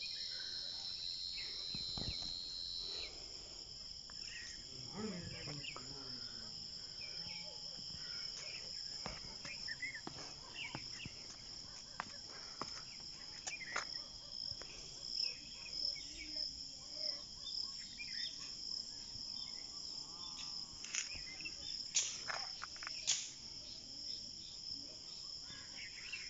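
Steady high-pitched chorus of insects chirping, with scattered short sharper chirps and clicks over it, the two strongest near the end.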